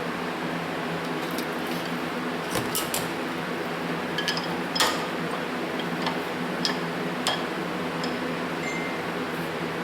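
Steady hum of a shop fan, with a scatter of light metallic clicks and taps from handling the carburetor's float and small tools while setting the float height on a Zenith carburetor. The loudest click comes about five seconds in.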